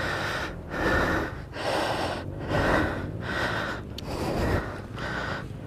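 A man breathing hard and fast, about one breath a second, out of breath from kickstarting a stalled dirt bike.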